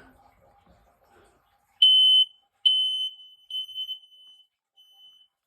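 Smoke alarms sounding on a test-button press, two going off together: a few short high-pitched beeps starting about two seconds in, the first the loudest and the rest growing fainter.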